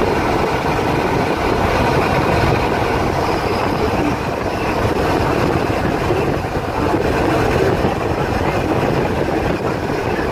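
Steady road and engine noise inside a moving truck's cab.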